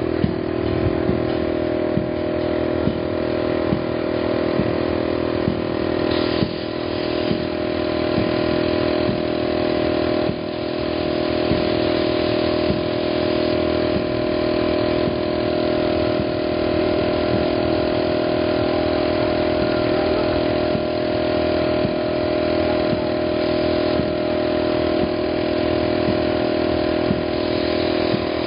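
A steady, unchanging engine drone, with faint ticks about once a second.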